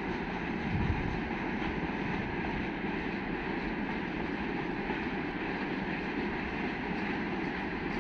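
Freight train hauled by a 2ES6 electric locomotive running by, a steady noise of wheels on rail.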